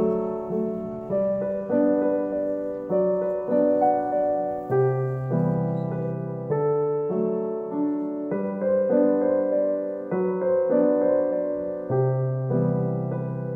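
Background piano music: a gentle melody of single struck notes, each fading away, over low bass notes.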